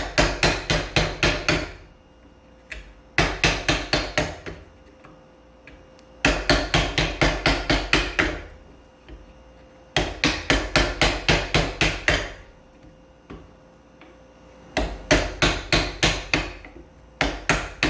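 Wood chisel being struck in quick runs of light taps, about five a second, each run lasting one to two seconds with short pauses between, as it chops waste out of a concave curve in a wooden blank.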